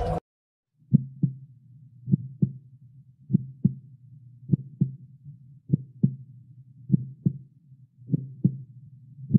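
Heartbeat sound effect: slow double thumps (lub-dub), about one pair every 1.2 seconds, over a faint low hum. It starts about a second in.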